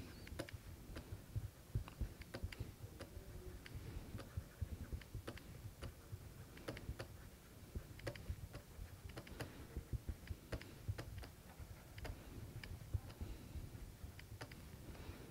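Faint, irregular clicks and taps of a stylus writing on a tablet screen.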